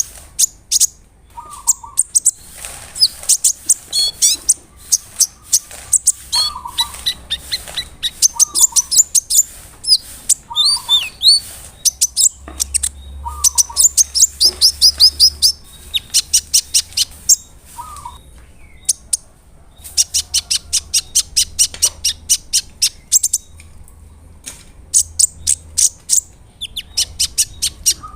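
A konin (kolibri ninja, a sunbird) singing in full voice: rapid runs of sharp, very high chips and trills broken by short pauses, with a short lower note recurring every couple of seconds.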